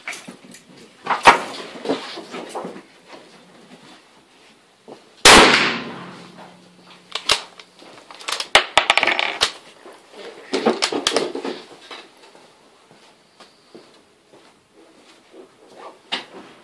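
A Ruger 77/44 bolt-action carbine in .44 Magnum fires one shot about five seconds in, and the report echoes in the covered firing booth. Another sharp bang comes about a second in. Between about seven and twelve seconds there are quick metallic clicks and clacks of the bolt being worked.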